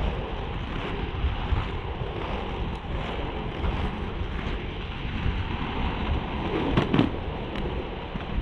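Inline skate wheels rolling on asphalt, a steady rough rumble mixed with wind buffeting the camera microphone. A brief louder knock comes about seven seconds in.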